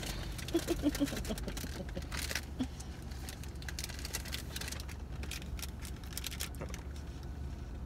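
Paper bags and food wrappers rustling and crinkling as takeout food is handled, a scatter of light clicks and crackles, over a steady low hum inside a car. A brief faint murmur of a voice about half a second in.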